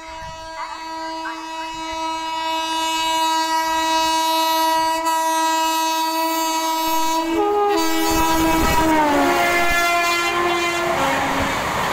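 Horn of an Indian Railways WAP-7 electric locomotive sounding one long, continuous blast as the train approaches at speed. Its pitch drops as the locomotive passes, between about seven and nine seconds in. The rushing, rattling noise of the coaches going by at speed then rises while the horn carries on in broken blasts.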